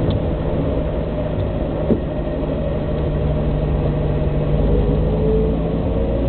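Austin A40 Farina's four-cylinder A-series engine running while driving, heard from inside the car, with a brief knock about two seconds in. The engine note rises slightly near the end.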